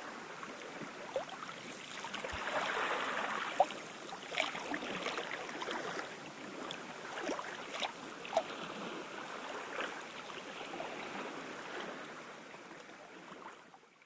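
Small waves washing onto a sandy beach, a steady wash with a gentle swell a few seconds in and scattered small ticks and knocks, fading out near the end.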